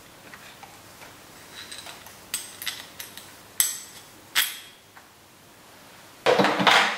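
Small metal parts, bolts and washers from the carburetor mount, handled and clinking together: four sharp ringing clinks in the middle, then a short, louder scrape near the end.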